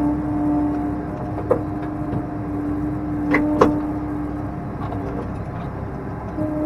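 Case IH tractor running, heard from inside its cab, a steady engine hum with a few sharp knocks and rattles, the loudest two close together about three and a half seconds in.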